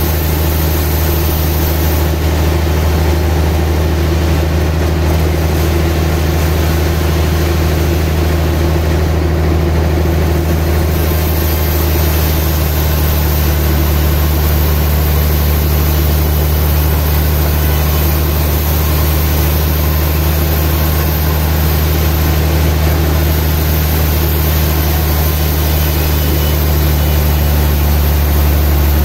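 Sawmill band saw running steadily as its blade cuts lengthwise through a large trembesi (rain tree) log: a constant loud machine drone with a deep hum and a hiss of cutting over it.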